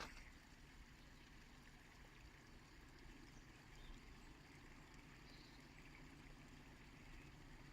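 Near silence: a faint steady low rumble, with a short click at the start and a few faint, brief high chirps.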